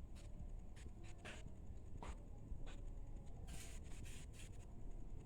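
Soft, muffled patting and rustling of hands on cloth, a burst about every half second to second and not quite regular, from chest physiotherapy percussion over the patient's chest or back to loosen phlegm.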